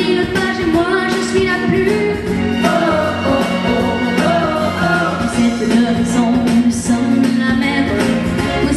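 A woman singing solo into a microphone over musical accompaniment, amplified through a stage sound system.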